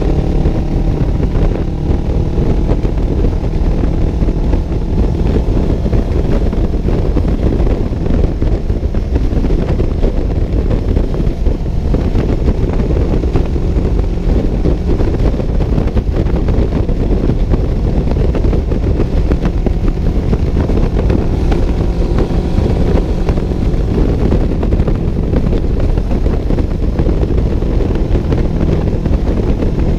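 Steady engine drone and road noise of a vehicle travelling at highway speed, with no change in pace.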